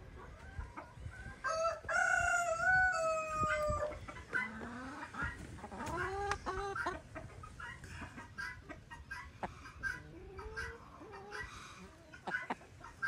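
Domestic chickens clucking, with one long drawn-out call lasting about two seconds, starting about a second and a half in, then shorter rising and bending clucks.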